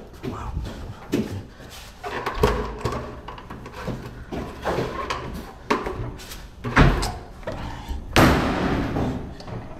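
Knocking and banging on a toilet cubicle's partition and door: a run of separate thuds a second or more apart, the loudest and longest one near the end.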